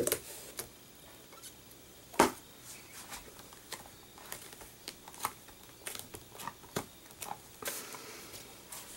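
Hands working a MISTI stamping tool: scattered light taps and clicks as its hinged lid is closed and pressed down on the paper to stamp a second time, with one sharper click about two seconds in.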